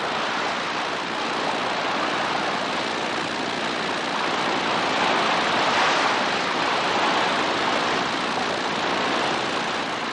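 Hovercraft skimming over water: a steady rushing hiss of spray and air with no distinct engine note, swelling a little around the middle.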